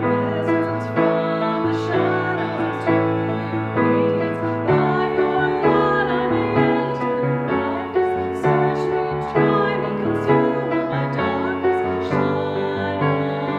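Two women singing a hymn together, accompanied on piano, with slow held chords changing about once a second under the voices.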